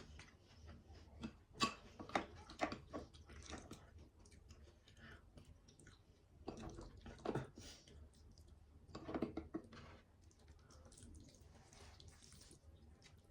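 A person chewing and eating: faint, wet mouth clicks and smacks that come in three spells of a second or two each.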